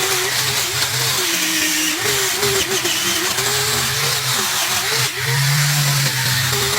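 A motor running continuously, its pitch wavering up and down.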